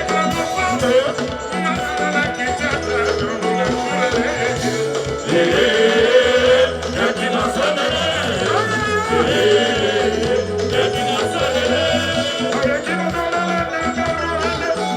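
Live Congolese rumba band music with a repeating bass line; a high, wavering melody comes in about five seconds in.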